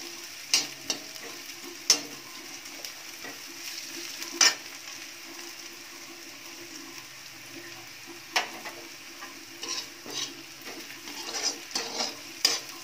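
Chopped onion, ginger and garlic sizzling steadily in oil in a metal kadhai, with a perforated steel spoon scraping and knocking against the pan as the mix is stirred. The spoon strikes come irregularly: a few sharp ones in the first five seconds, then a busier run of scrapes near the end.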